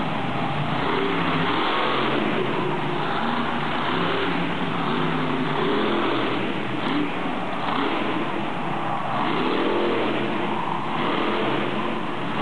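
Monster truck engines revving hard, the engine note climbing and falling in repeated surges.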